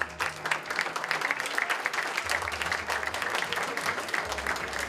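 Audience applauding steadily, with the bass of background music underneath.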